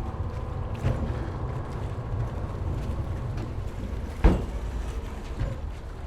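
A ferry coming into dock, its engines giving a steady low rumble with faint steady tones over it. A few knocks sound, with one heavy thud about four seconds in.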